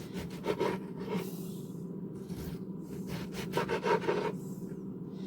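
Kitchen knife cutting tomatoes on a cutting board: a few short scraping strokes early on, then a quicker run of cuts past the middle.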